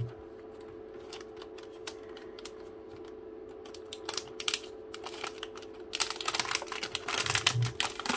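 A shiny metallised protective bag crinkles and rustles as a laptop is worked out of it. Scattered light crackles come first, then dense crinkling from about six seconds in, over a faint steady hum.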